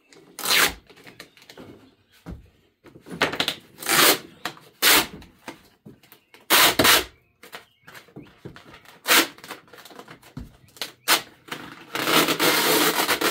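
Plastic parts of a cat exercise wheel being pried and pulled loose: a series of sharp clacks and scrapes, about six in all, then a longer rasping scrape of over a second near the end. The pieces are stuck on tight and have to be forced off.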